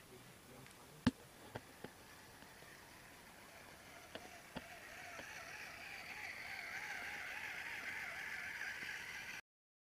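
Small electric motor and gearbox of an RC scale model truck whining as it crawls over sand, the wavering whine rising and growing louder as the truck comes close. A few sharp clicks come first, the loudest about a second in.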